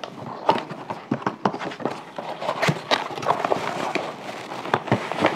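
A cardboard product box being opened and handled by hand: irregular scrapes, taps and crinkles of the box flaps and the packaging inside.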